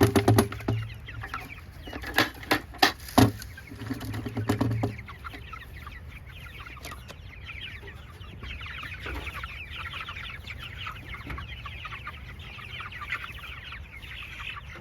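A flock of young chickens chirping and clucking busily, many short high calls overlapping. In the first few seconds there is dense rattling with a few sharp knocks, as of feed and the feeder being handled.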